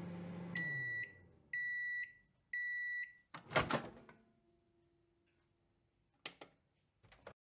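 Microwave oven winding down, its low hum dropping in pitch and fading, then three beeps about a second apart signalling the end of the cook cycle. The door then pops open with a loud clunk, followed by two short clicks near the end.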